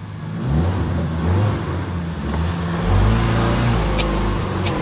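Ford Bronco's engine revving up and down in low range and crawl mode as it works over an obstacle, the throttle rising and easing in surges. Two short sharp clicks come near the end.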